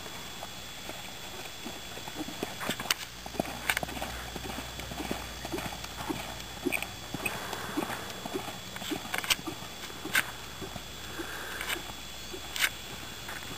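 Horse's hoofbeats on sand arena footing: an even rhythm of soft thuds, about two a second, with a few sharper clicks.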